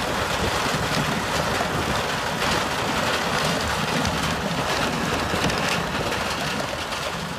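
Tractor-mounted stone crusher working: a dense, steady crackle and rattle of rock being broken up, over the rumble of the tractor driving it.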